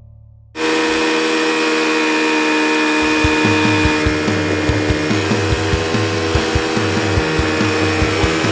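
ATV engine running steadily under way on a dirt trail, close to the microphone, with irregular low thumps from about three seconds in. It cuts in suddenly about half a second in, after the tail of fading music.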